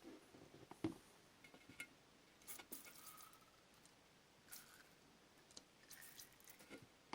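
Faint, scattered clicks and light knocks from tools and small parts being handled on a workbench, the loudest a little under a second in.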